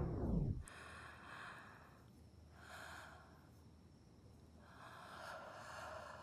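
A sleeping man snoring softly: three hissy snoring breaths, each about a second long. A loud falling tone dies away in the first moment.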